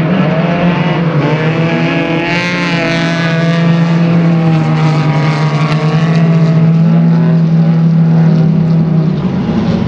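Midget race car engines running on a dirt oval. There is a steady low engine drone, with other cars' engines rising and falling in pitch as they go past, mostly between about two and four seconds in.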